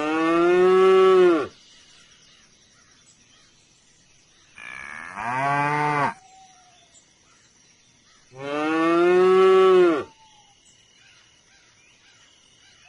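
A cow mooing three times, each call about a second and a half long and falling in pitch at the end, with a few seconds between calls. A faint steady high whine runs underneath.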